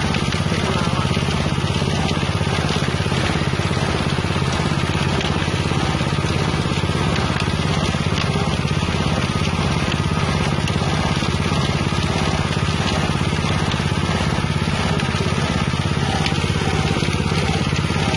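Galangal grinding machine driven by a 6.5 hp engine, running steadily at full speed while it mills galangal, the engine drone mixed with the hiss and rattle of the crushed material.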